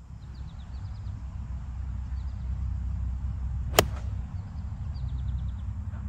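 Gap wedge striking a golf ball on a full approach swing: one sharp, crisp click a little past the middle, over a steady low rumble.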